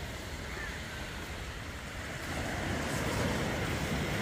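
Sea waves washing on the shore, with wind rumbling on the microphone; it grows louder a little past halfway.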